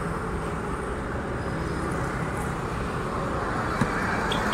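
Steady road traffic noise, a constant rumble of passing vehicles.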